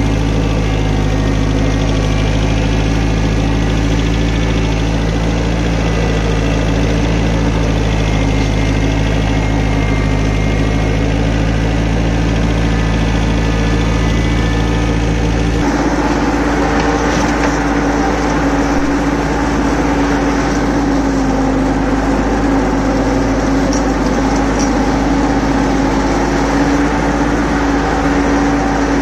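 Compact tractor engine running steadily at raised revs, pulling a finishing mower. About halfway through, the sound changes suddenly to a rougher, noisier run with one steady hum over it.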